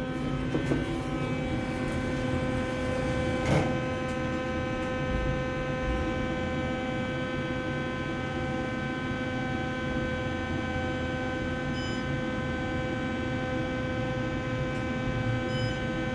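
Otis elevator car humming steadily while it travels down, with a single knock about three and a half seconds in.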